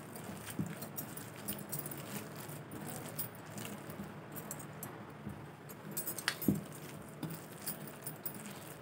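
Faint squishing of a hand kneading a wet mixture of grated bottle gourd and gram flour in a ceramic bowl, with the light jingle of bangles and a sharper clink a little after six seconds in.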